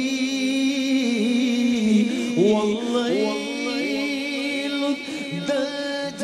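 A man singing a naat solo into a microphone, holding long notes with wavering, gliding ornaments.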